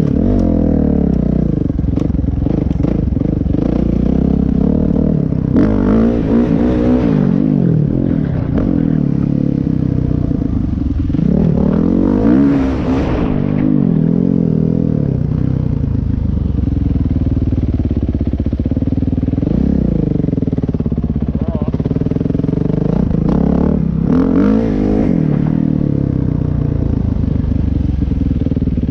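Dirt bike engine heard up close, revving up and down through the gears as it is ridden, with sharp rises in pitch about six, twelve and twenty-four seconds in.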